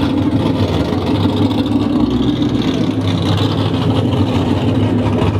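Loud exhausts of performance cars rolling slowly past at low revs, a steady deep engine drone: first a Ford Mustang GT's 5.0 V8, then a dark sports car.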